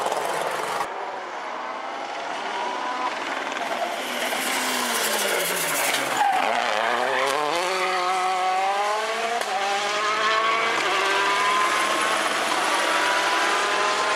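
Rally car engine on a special stage: the revs fall as it slows for a corner about four seconds in, then climb hard as it accelerates away, rising again after each quick upshift.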